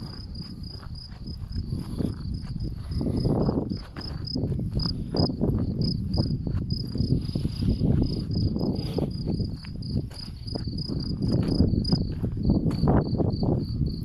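A cricket chirping steadily in a fast, even rhythm of several high chirps a second, over a loud, uneven low rumble.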